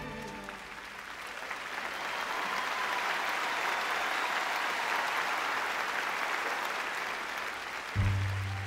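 Theatre audience applauding, swelling over the first couple of seconds and holding steady. About eight seconds in, music with a strong bass line comes in abruptly.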